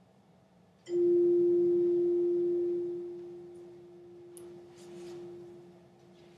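A struck chime rings one clear, steady tone that starts suddenly and fades slowly over several seconds, signalling the end of a period of silent meditation. A few faint rustles and steps follow.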